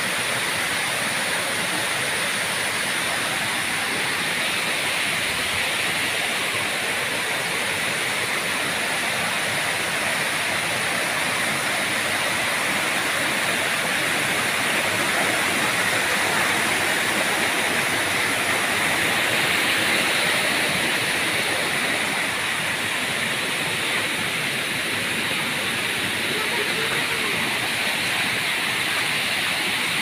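Waterfall water cascading and rushing over rock tiers in a steady, even rush, a little louder about halfway through.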